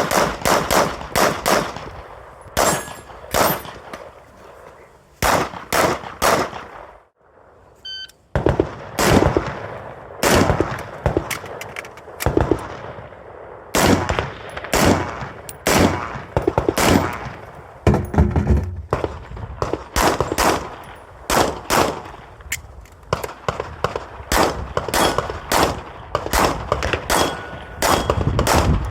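Rapid strings of pistol-calibre gunfire, shots often a fraction of a second apart, with a brief break about seven seconds in.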